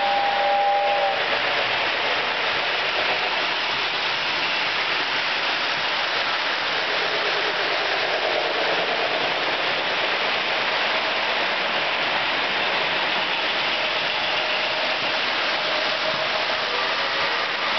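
Lionel O-gauge model trains running on three-rail track: a steady rolling rattle of wheels on the rails. A model train whistle ends about a second in.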